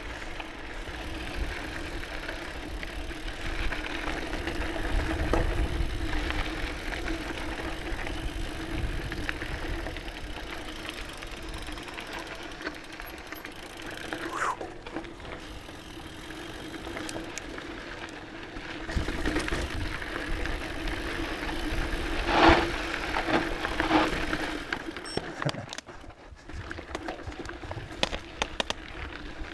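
Scott Genius full-suspension mountain bike rolling fast down dry dirt singletrack: tyres running on dirt with chain and frame rattle and wind rush. A few louder clattering hits come about three-quarters of the way in.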